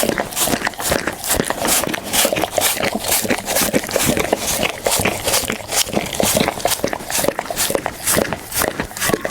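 Pit bull chewing food close to the microphone: a steady run of crunches and wet smacks, about three a second.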